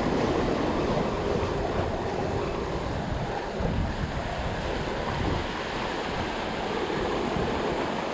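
Ocean surf washing against jetty rocks, a steady rushing, with wind buffeting the microphone.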